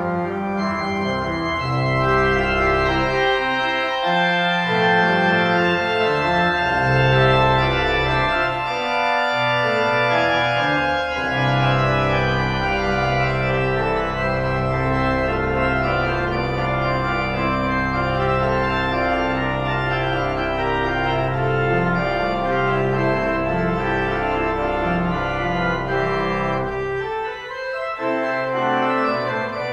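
Pipe organ playing slow, sustained chords over held bass notes, with a brief break in the bass near the end.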